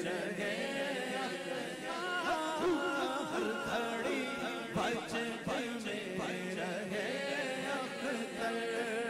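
Background music: a voice singing a slow, ornamented devotional melody in the style of a naat or nasheed, with little accompaniment.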